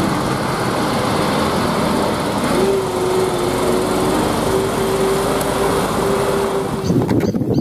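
MAN concrete mixer truck's diesel engine running as the truck drives slowly past. A steady tone joins in about two and a half seconds in and stops shortly before the end.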